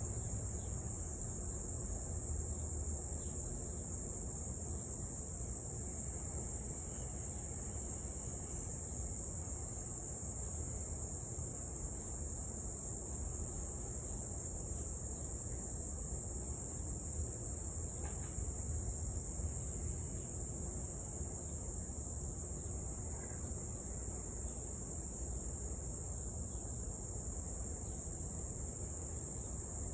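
Steady high-pitched chorus of insects, unbroken, over a constant low rumble of background noise.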